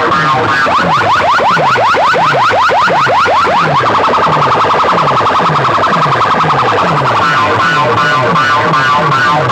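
Electronic DJ competition track built from siren and car-alarm style effects. A quick run of rising chirps, about six a second, gives way about four seconds in to a fast warbling tone, then to choppy alarm-like pulses. A falling bass sweep repeats about twice a second underneath.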